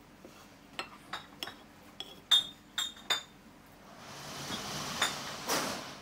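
Sharp clinks of dishes and utensils, about seven in the first three seconds, then a hiss that swells over the last two seconds.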